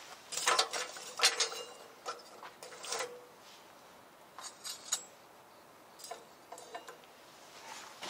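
Light clinks and taps of eating or cooking utensils against cookware, in several small clusters with a short metallic ring after some of them.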